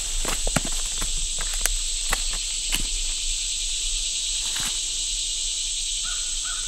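Steady, shrill drone of summer insects, with scattered crackles of footsteps and handling in dry leaf litter. Near the end a bird starts a short repeated call.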